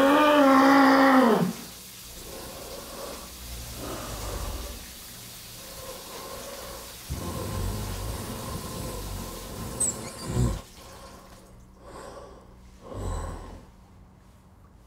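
A person's loud anguished wail that rises and then falls in pitch, lasting about a second and a half, followed by quieter heavy, gasping breaths.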